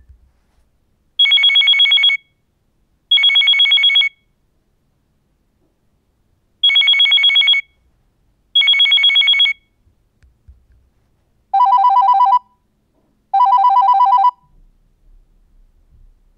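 Nokia 6600 'Desk phone hi' ringtone, an electronic imitation of a desk phone bell: high-pitched trilling rings of about a second each, sounding in two pairs. About eleven seconds in, it changes to the lower-pitched 'Desk phone lo' tone, ringing twice.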